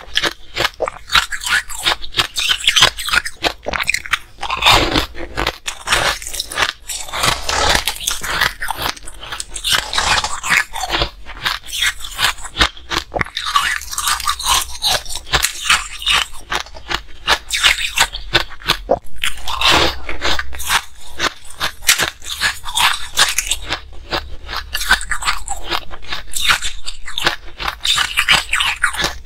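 Close-miked biting and chewing of frost-coated ice balls: a dense, continuous run of crisp crunches and crackles as the ice breaks between the teeth.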